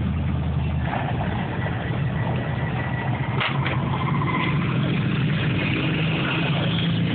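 Engines of vehicles driving slowly past: a lifted pickup truck, then a cruiser motorcycle and a car, making a steady low rumble throughout. Two short sharp clicks come about halfway through.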